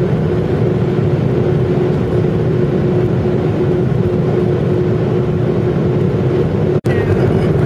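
Jet airliner cabin noise during the climb after takeoff: a steady roar of engines and airflow with a constant droning tone beneath it. The sound cuts out for an instant near the end.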